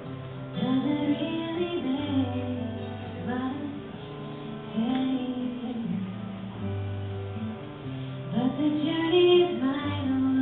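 Live music: a woman singing over guitar accompaniment, in several sung phrases.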